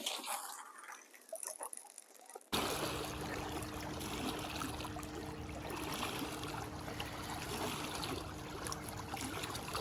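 Lake water trickling and lapping. About two and a half seconds in, the sound cuts abruptly to a louder, steady noise with a faint low hum running through it.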